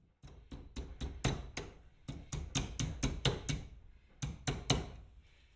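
A metal hand tool tapping quickly and repeatedly on a cotter pin at a golf cart's front hub, securing it in the castle nut: about a dozen sharp taps, a short pause about four seconds in, then three more.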